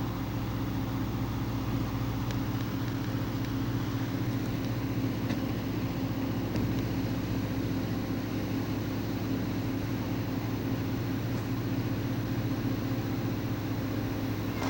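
Tour bus engine idling steadily, a constant low hum with a few faint clicks on top.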